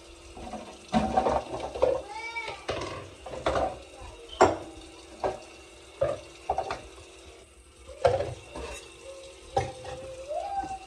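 Dishes and utensils clinking and knocking against a stainless-steel kitchen sink while the tap runs, the knocks coming irregularly and the loudest about four seconds in. A short high-pitched voice cuts in about two seconds in and again near the end.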